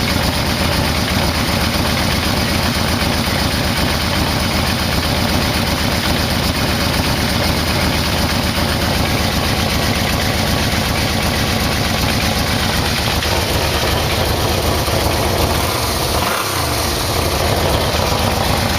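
Yamaha VMax V4 engine idling while its out-of-sync carburettors are being adjusted at the sync screw. About sixteen seconds in the idle note sags briefly and then picks back up.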